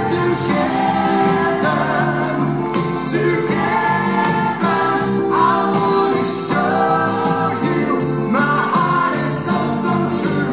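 Live pop song: a male lead singer singing into a microphone over a band with electric guitar.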